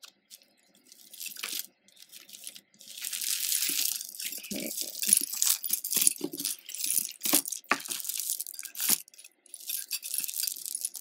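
Tangled costume jewelry being handled: metal chains and faux-pearl cluster necklaces jangling and clicking against each other. A few faint clicks at first, then busy clinking from about three seconds in.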